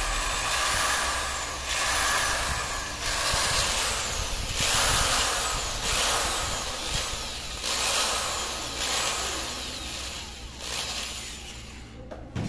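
Electric drill spinning a cleaning attachment against the threaded valve base of a pressure cooker lid, scrubbing the metal clean with a scratchy whirring noise that eases off and picks up again several times.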